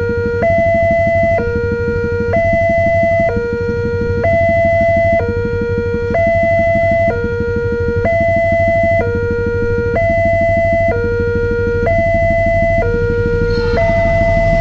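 Indonesian railway level-crossing alarm sounding its electronic two-tone warning, a lower and a higher tone alternating about once a second: the signal that a train is approaching the crossing. Near the end the noise of the oncoming train starts to swell under the alarm.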